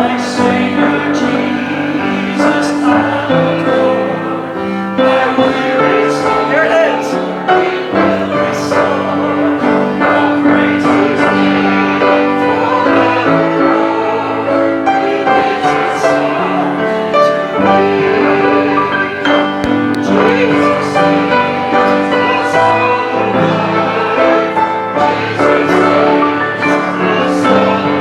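A hymn played on piano with voices singing along, sung continuously at a steady tempo.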